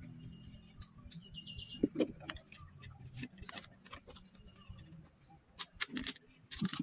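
Scattered light clicks and knocks of a homemade speargun and its latex rubber tubing being handled and fitted, with a cluster of them near the end. A bird gives a short, quick trill of high chirps about a second and a half in.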